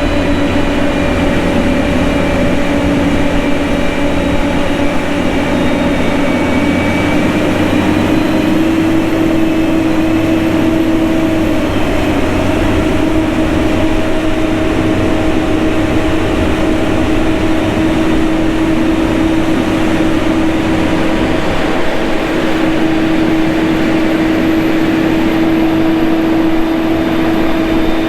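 Motor grader's diesel engine running steadily, with a steady whine that rises slightly in pitch about eight seconds in.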